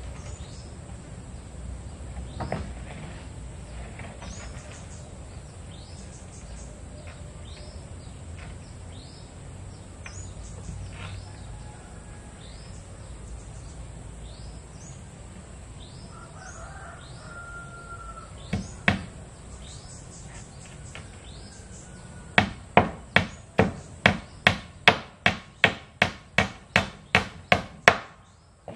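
Hammer nailing wooden planks onto a cabin wall: one blow about two-thirds of the way in, then a steady run of about fourteen blows, roughly two and a half a second, near the end. Birds chirp throughout with short, repeated falling calls.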